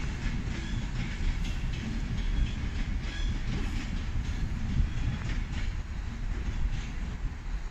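Class 390 Pendolino electric train pulling away and receding: a steady low rumble from the train on the track, with occasional faint clicks of wheels over rail joints.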